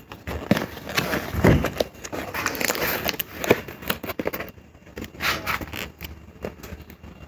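Handling and unpacking of tools and packaging: irregular clicks, scrapes and rustles, with no motor running.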